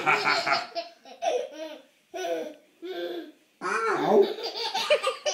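A 14-month-old baby laughing in a string of short, giggly bursts with brief pauses between them.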